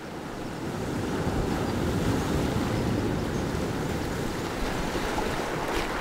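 Sea waves washing in over a pebble beach between rocks: the rush of surf swells over the first second or so, then holds as a steady wash of foaming water over the pebbles.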